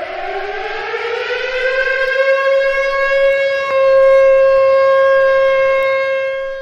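Civil defense siren sounding an attack warning. It winds up in pitch over about three seconds, then holds a steady tone, grows louder about halfway through, and cuts off sharply at the end.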